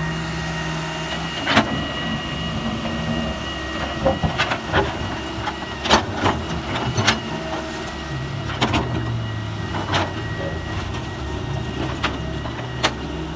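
Heavy diesel machinery running with a steady engine hum and a thin high whine, broken by about ten sharp knocks and clanks spread through it.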